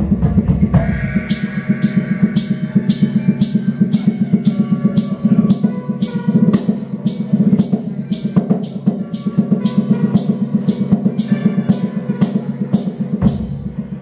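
Live music: a fast, steady low pulse under sharp, evenly spaced percussion hits, a little over two a second. The hits start about a second in and stop shortly before the end.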